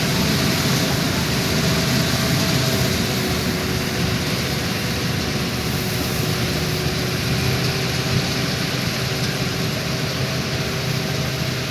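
Vishal 435 combine harvester running steadily as it harvests paddy, a continuous mechanical drone with a faint steady hum in it.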